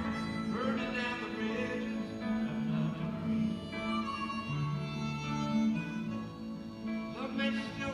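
Harmonica playing an instrumental break of sustained, bending notes over acoustic guitar accompaniment.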